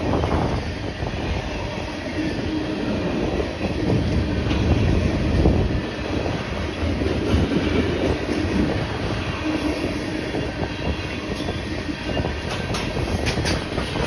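Freight train's tank cars rolling past: a steady rumble of steel wheels on the rails, with a faint whine now and then and a run of sharp clicks near the end as wheels cross rail joints.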